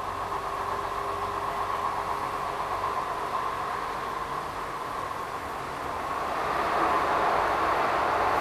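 Steady running rumble and hiss of a light-rail car heard from inside the passenger cabin. It grows louder about two-thirds of the way through, as the car runs into a tunnel.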